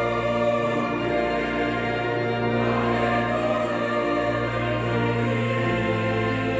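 A large choir singing with a full orchestra, holding long sustained chords that change every second or two.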